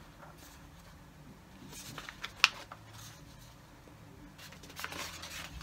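Scattered clicks and taps from someone working a laptop, with one sharp click about two and a half seconds in and a few more near the end.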